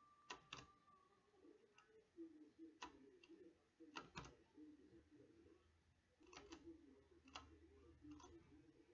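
Faint computer mouse clicks, single and in quick pairs, a second or two apart.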